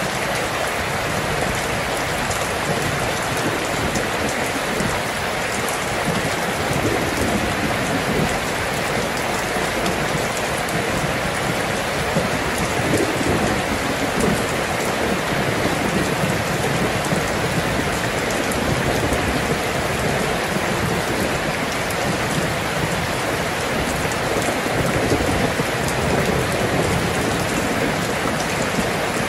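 Steady rain: an even, continuous hiss of many drops falling, with no break.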